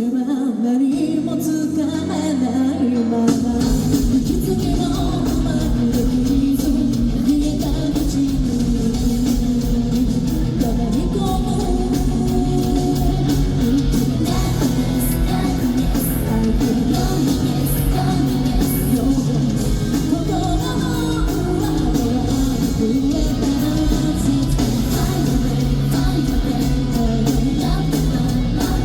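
A rock band plays live with a female lead singer: distorted guitars, keyboards and singing. Full bass and drums come in about three and a half seconds in and carry on steadily.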